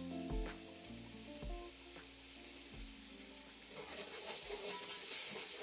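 A masala sizzling in an aluminium pot while a metal ladle stirs and scrapes it. The sizzle grows louder about four seconds in, with faint background music with a few plucked notes at the start.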